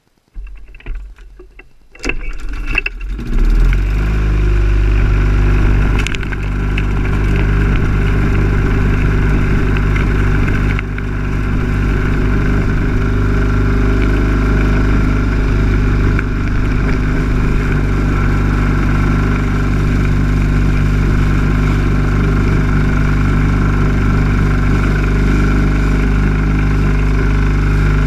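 Lawn mower's small engine being started: it turns over unevenly for about two seconds, catches, and then runs steadily at a constant speed.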